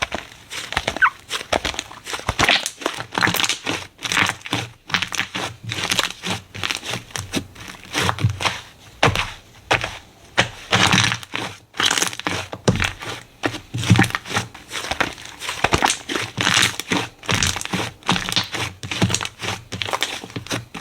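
Slime being squished and pressed, making dense, irregular crackling and popping with a few soft thuds.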